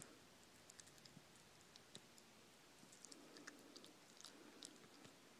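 Kinkajou chewing a banana: faint, irregular wet mouth clicks and smacks.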